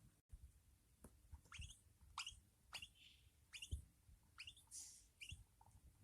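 Budgerigars in a nest chirping faintly: a string of short, falling chirps, one every half second or so, with a couple of brief raspy hisses and soft low thumps of movement.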